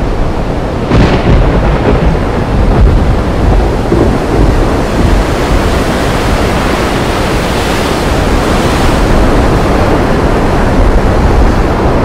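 Loud, steady rushing of a swollen, muddy river running fast in the rainy-season flood, with a heavy low rumble.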